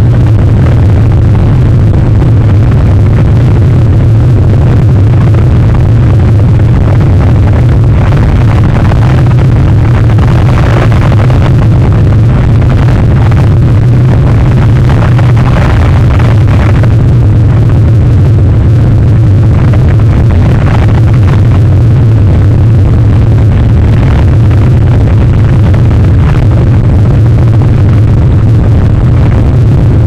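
Storm wind blasting an outdoor camera's microphone: a loud, steady low rumble with a rushing hiss that surges in stronger gusts around the middle.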